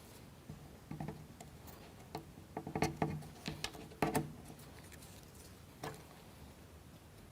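Scattered light clicks and taps of small plywood kit parts and toothpicks being handled and fitted as a wooden wheel is finished, the sharpest about three and four seconds in.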